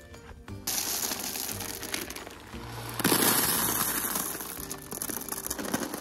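Small rocks (gravel) being raked over, then poured from a bag into the hive stand: a rushing clatter of stones that grows louder about three seconds in, over background music.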